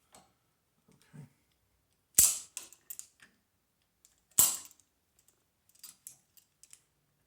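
Center punch striking metal twice, about two seconds apart, each a sharp crack, to dimple the spot for drilling; a few light clicks follow near the end.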